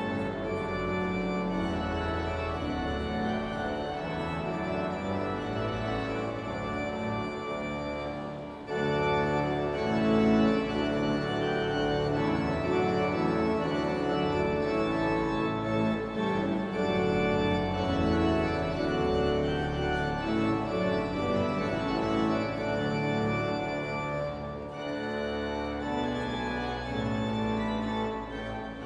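Organ playing slow, held chords as processional music, growing louder about nine seconds in.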